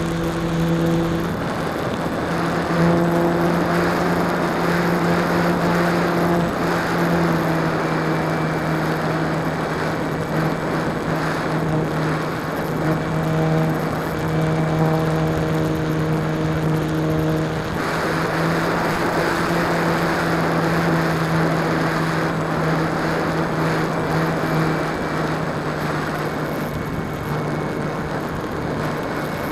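E-flite Apprentice's electric motor and propeller running in flight, heard up close: a steady buzzing whine whose pitch shifts slightly a few times, with wind rushing past.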